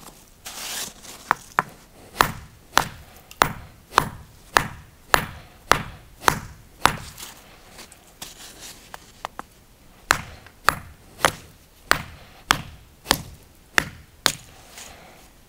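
Hand hammer striking a steel chisel held on a natural-stone paving sett: a regular run of sharp metallic strikes, about one and a half a second. It pauses about halfway through with a few faint taps, then resumes. The blows are light, shaping the stone without force.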